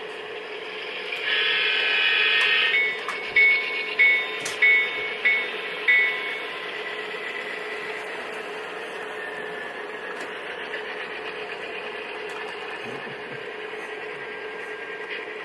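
Sound decoder of an HO-scale Santa Fe F-unit diesel model blowing a long air-horn blast, then ringing its bell five times, about 0.6 s apart, over a steady diesel running sound as the train passes.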